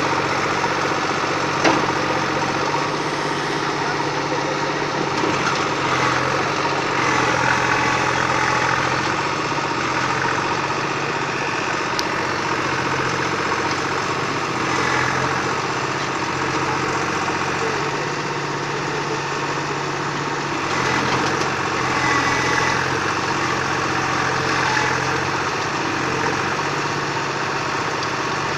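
SAME Agrolux 55 HP tractor engine running steadily, its sound swelling and easing a little every few seconds as it powers the backhoe loader. A single sharp click comes about two seconds in.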